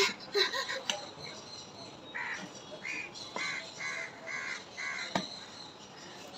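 Crows cawing: a quick run of about six harsh caws, starting about two seconds in and stopping shortly before five seconds.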